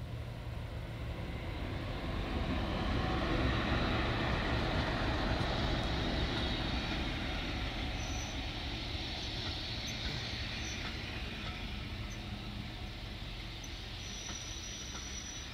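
Class 37 diesel locomotive with an English Electric V12 engine running under load as it passes close by, hauling a train of coaches. The engine sound swells to its loudest a few seconds in as the locomotive goes by. It then eases off into the steady rolling of the coaches on the rails.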